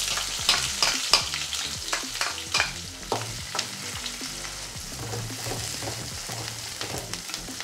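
Chopped onion sizzling in hot oil in an aluminium kadai while a spatula stirs it, scraping and tapping against the pan. The taps come thick in the first few seconds, then thin out under the steady sizzle.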